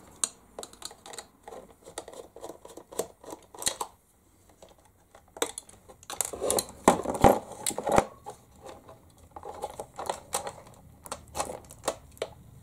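Irregular clicks, taps and scrapes of hands and a small hand tool working on a plastic 1/16-scale RC truck as its cab is taken off the chassis. They are loudest and busiest about six to eight seconds in.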